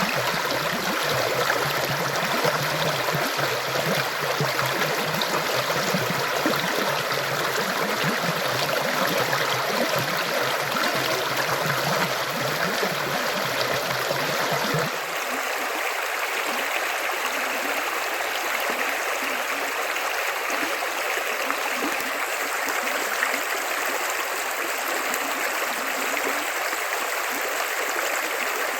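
River water flowing steadily. About halfway through, the sound changes abruptly and loses much of its low rumble.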